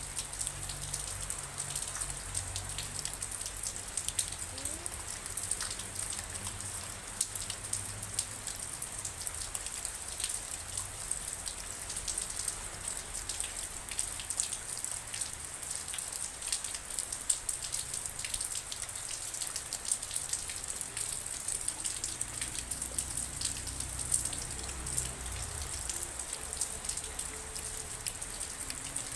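Steady rain, with a dense run of individual drops ticking sharply on a surface over an even hiss, and a faint low rumble underneath.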